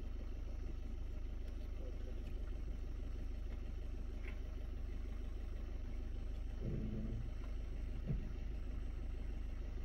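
Vehicle engine idling, a steady low rumble. A short low sound comes about seven seconds in, and a brief knock follows about a second later.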